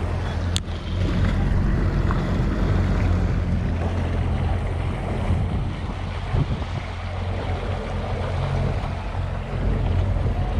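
A boat's outboard motor runs steadily with a low hum while water rushes and splashes along the hull, and wind buffets the microphone.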